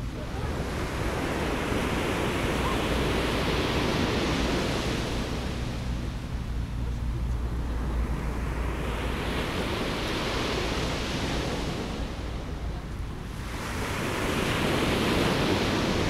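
Mediterranean sea waves breaking and washing up the beach, three long swells of surf that build and fade, over a low rumble of wind on the microphone.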